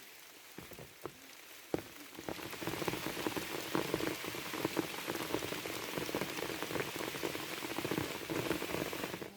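Rain pattering on a surface: a few scattered drops at first, then from about two seconds in a dense, steady patter, which cuts off suddenly near the end.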